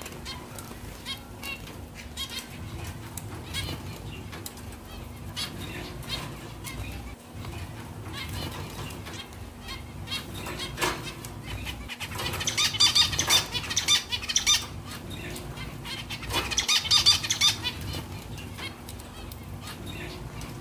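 Flock of zebra finches calling, with many short chirps overlapping throughout. Two louder bursts of rapid calling come about twelve and sixteen seconds in.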